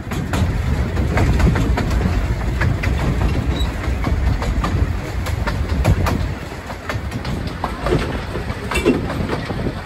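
Narrow-gauge railway passenger carriage running along the track, heard from aboard: a steady rumble with scattered clicks and clatter from the wheels on the rails.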